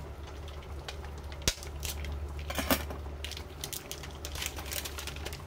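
A plastic curry roux pack being handled and opened: a sharp click about a second and a half in, then several bursts of crinkling and crackling, over a steady low hum.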